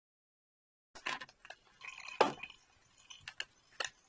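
Dishwasher parts being handled and pulled apart: a run of separate clicks and knocks of hard parts, starting about a second in, the loudest knock about two seconds in.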